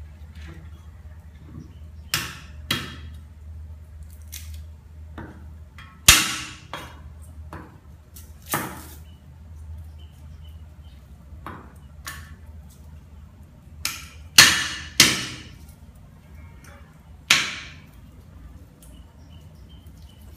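Sharp, irregular knocks of something being struck by hand during food preparation: seven loud ones and several lighter taps, each with a short ringing tail, over a steady low hum.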